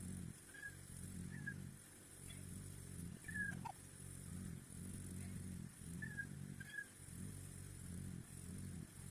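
Meat chickens cheeping faintly: short, slightly falling peeps every second or so over a low, uneven murmur.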